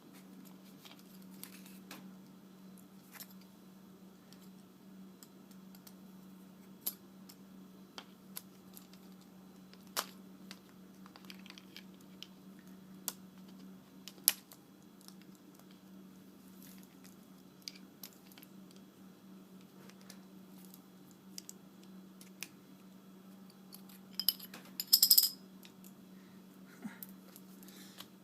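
Scattered small clicks and taps of hand tools on an LED light bulb's housing as it is pried apart, with a quick burst of sharper metallic clinks near the end, over a steady low hum.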